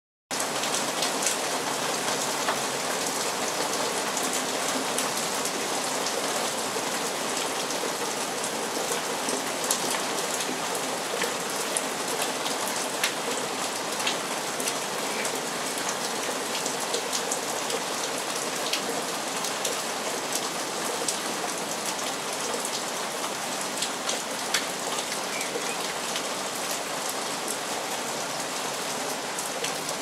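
Steady rain falling on a garden, with scattered sharp taps of single drops close by.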